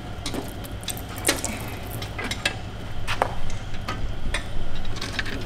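Oil dripping and splattering from the opened-up Audi 4.2-litre V8 into a drain pan, with scattered metallic clicks and clinks of a ratchet working on the engine's bolts.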